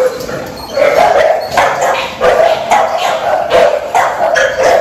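Dogs barking over and over, about two or three sharp barks a second.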